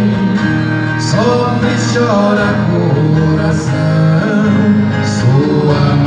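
Live música caipira played on acoustic guitars, with plucked and strummed strings and a male voice singing the melody.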